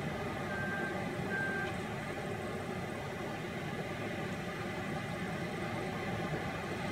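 CAT 972M wheel loader's diesel engine running steadily as the machine works a sand pile, with two short high beeps of a reversing alarm within the first two seconds.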